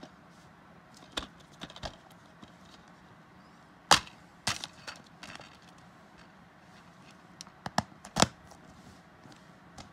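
Plastic DVD keep case handled and turned over by hand: a series of sharp clicks and knocks, the loudest about four seconds in, with another cluster near eight seconds.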